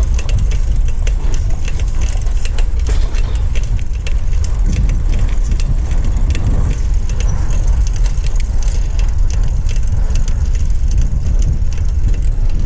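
Wind buffeting the microphone on a moving bicycle, a steady low rumble, with frequent light rattles and clicks over it.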